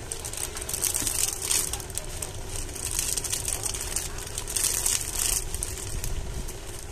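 Clear plastic packaging crinkling and rustling in the hands, in several short bursts, over a steady low rumble.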